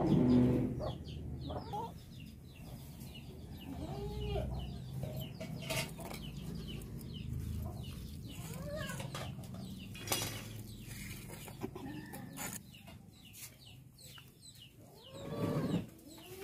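Chickens clucking, with a few louder arching calls about four seconds in and again near the end.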